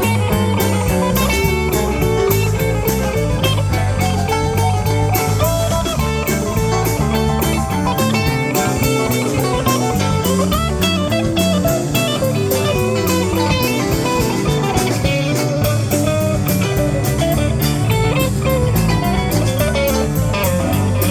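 Instrumental rock jam: electric guitar playing over a drum kit keeping a steady beat, with a low bass line moving underneath.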